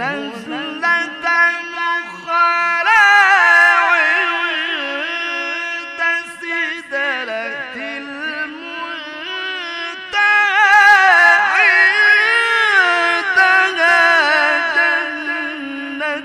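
A male qari's voice in mujawwad-style Quran recitation: a long melismatic passage sung in a high register, with held notes that turn and waver through rapid ornaments. There is a short break for breath about ten seconds in, and the voice comes back louder.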